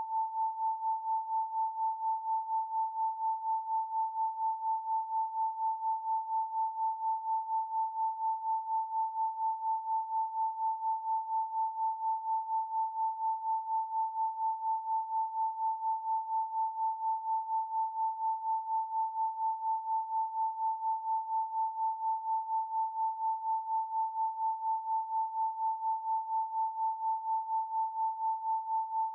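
A pure 888 Hz sine tone, held at one pitch without a break, its loudness pulsing evenly several times a second.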